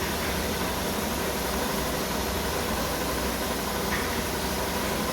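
Steady, unbroken machine noise with a low hum underneath.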